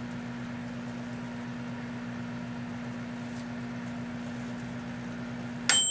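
Proctor-Silex microwave oven running with a steady low hum. Near the end the hum cuts off with a sharp click and the high end-of-cycle beep starts as the cooking time runs out.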